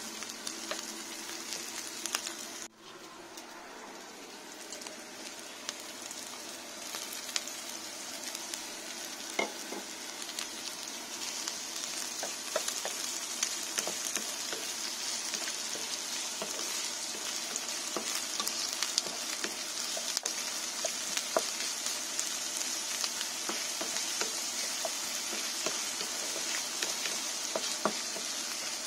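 Diced onion and bacon sizzling in a frying pan. The hiss grows gradually louder, with scattered clicks and scrapes of a wooden spatula as the pieces are stirred.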